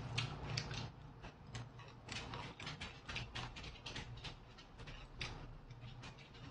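Faint, irregular clicks and ticks of hands handling rice paper, herbs and vegetables at a table while rolling Vietnamese spring rolls.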